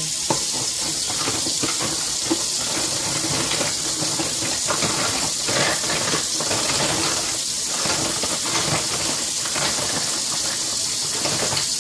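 Kitchen tap running steadily into a sink, with irregular splashing and scrubbing as a sponge-tipped bottle brush works in a basin of water.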